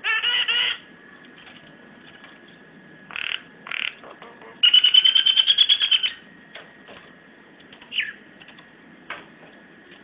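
White-vented myna (jalak kebo) giving harsh calls: a short loud burst at the start, a few brief calls, and a rapid rattle of about a second and a half in the middle.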